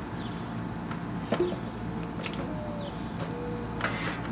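Outdoor summer ambience with a steady high insect drone, broken by a few light knocks and clicks from handling a wooden sewing machine table.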